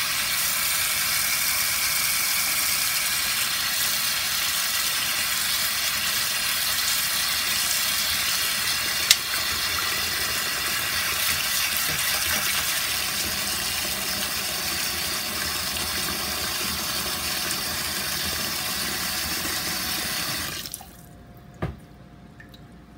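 Hot water from a kitchen tap pouring onto a frozen plastic tub in a stainless steel sink, a steady splashing rush, with one sharp click about nine seconds in. The tap is shut off suddenly near the end and a faint click or two follows.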